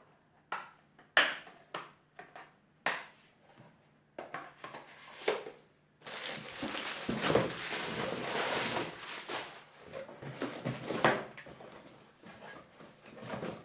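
Hands handling software boxes and packaging: a string of light knocks and clicks, then about four seconds of continuous rustling of packaging from about six seconds in, then a few more knocks.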